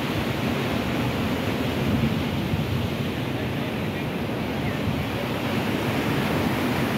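Sea surf breaking and washing in steadily, mixed with wind buffeting the microphone.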